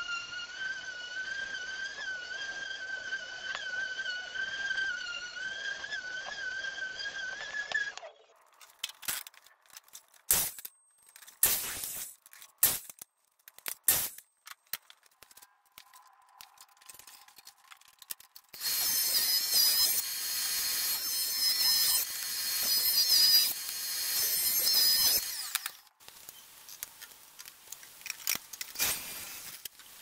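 Woodworking power tools. A steady, slightly wavering motor whine runs for about eight seconds, followed by scattered knocks and clatter of wood being handled. A louder power tool then cuts wood for about six seconds.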